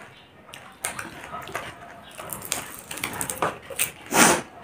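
Panipuri eating: crisp puri shells crunched and chewed, with wet mouth clicks and smacks. A loud breath breaks in about four seconds in.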